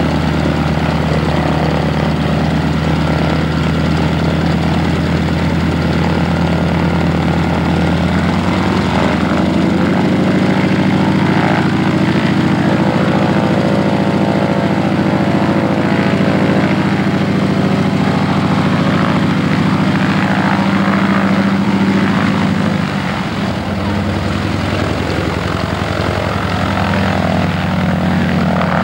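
Radial engine of a Nakajima B5N2 'Kate' replica, built from BT-13 and AT-6 airframes, running with its propeller turning. About nine seconds in it is throttled up to a louder, higher-pitched run. About twenty-three seconds in it eases back as the plane taxis.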